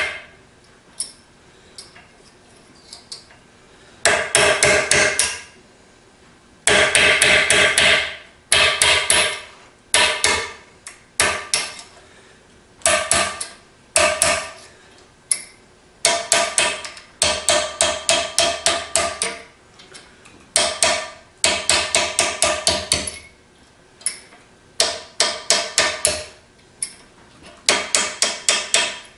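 Small hammer striking a steel punch set against a bearing retaining nut to drive it loose, in quick runs of metallic taps at about six a second with short pauses between. Each tap rings.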